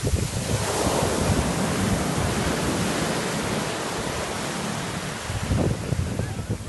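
Ocean surf washing up a sandy beach, a steady rush of breaking waves that swells about a second in. Wind buffets the microphone in low rumbling gusts near the end.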